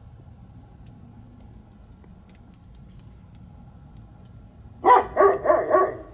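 A large dog barking four times in quick succession near the end, over a faint, steady low background rumble.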